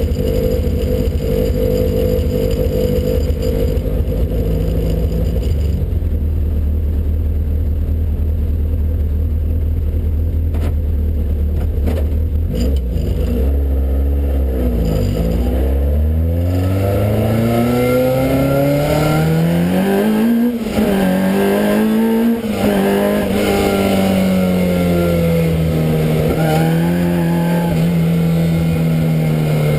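Vauxhall Nova's 258 bhp naturally aspirated race engine with throttle bodies, heard from inside the car. It idles steadily, with a few short blips, then pulls away. The pitch climbs and drops sharply at two upshifts, then holds fairly steady.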